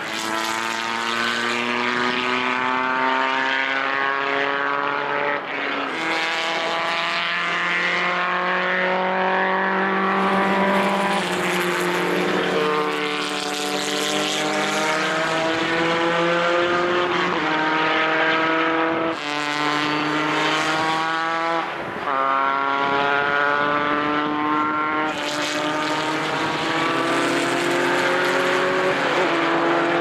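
Several historic single-seater formula racing cars accelerating hard, their engine notes climbing in pitch and dropping back at each upshift, with more than one car heard at once as they follow each other.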